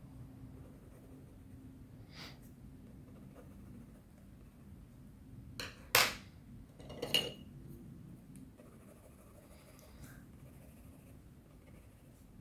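Wooden coloured pencils knocking on a hard surface as they are set down or picked up: a light click, then two sharp knocks about a second apart, over faint room tone.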